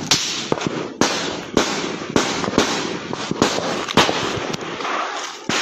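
Small-arms gunfire in a firefight: a dozen or more sharp shots at an irregular pace, roughly half a second apart, each followed by an echoing tail.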